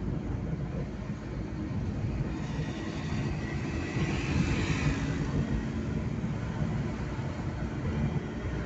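Road and engine noise inside a moving car's cabin: a steady low rumble with tyre hiss that swells a little around the middle.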